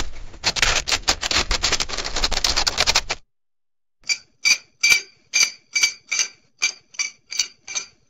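Camera sound effects: a dense run of rapid clicking for about three seconds, a camera memory card write confirmation. Then, after a short pause, evenly spaced sharp clicks with a slight metallic ring, about two and a half a second, from a camera tripod being set up.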